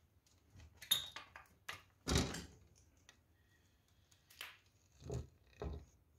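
Old wooden window sashes knocking and scraping as a hand pushes them open, a run of sharp knocks, the loudest about two seconds in, with a few softer knocks near the end.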